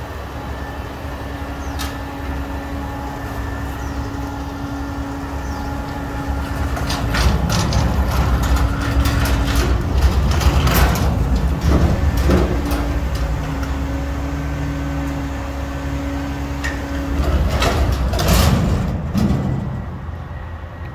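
Front-loader garbage truck's engine revving up and holding a steady high pitch, drops for a few seconds, then holds it again. In between and near the end, a metal dumpster rattles and bangs as it is rolled on its casters, with a loud burst of knocks just before the end.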